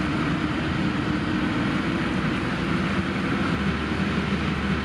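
Volvo XC40 T5 engine and exhaust running at a steady cruise, a constant drone with no revving, over the hiss of tyres on wet asphalt.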